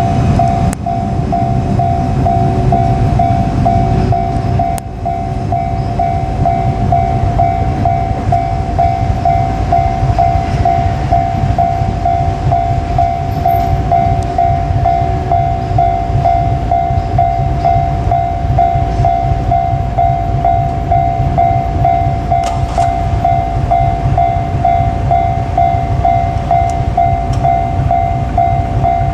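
Japanese level-crossing warning bell ringing, a steady, evenly repeating two-tone ding, over the low rumble and wheel clatter of a freight train hauled by an EF81 electric locomotive rolling past.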